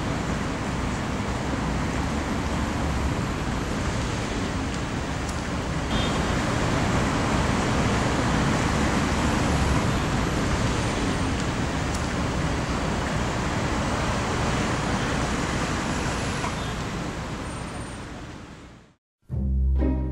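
Steady city traffic noise, a constant rumble and hiss that fades out near the end. After a brief silence, music begins.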